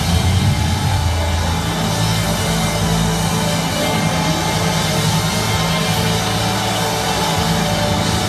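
Loud live praise music from a church band, with a heavy bass line whose sustained low notes change every second or two.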